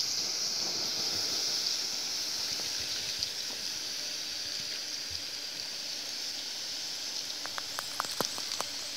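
Forest ambience: a steady high-pitched hiss over a low rush of running water, with a quick run of sharp clicks near the end.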